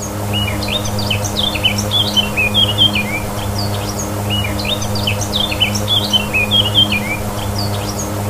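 Songbirds chirping and singing in quick repeated phrases, over a steady low hum.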